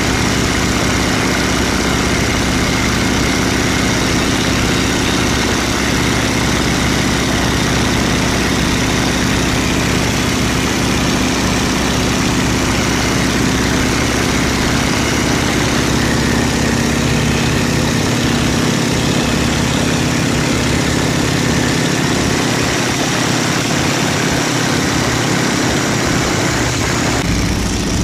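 Boeing Stearman biplane's radial engine running steadily in flight, heard from the open cockpit under a rush of wind and propeller blast. The engine note shifts lower about halfway through.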